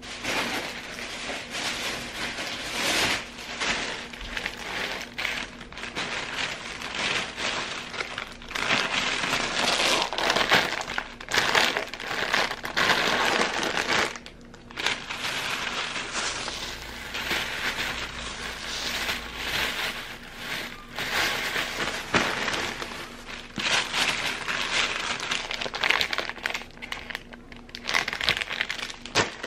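Plastic bags and plastic food packaging rustling and crinkling as groceries are unpacked and handled, with a brief lull about halfway through.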